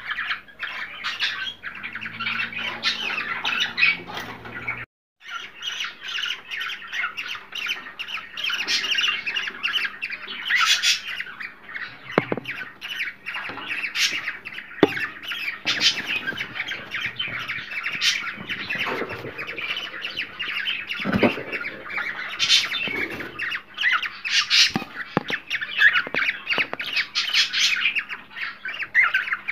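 A group of cockatiels chattering and squawking, a dense, unbroken mix of chirps and harsh calls that drops out for a split second about five seconds in.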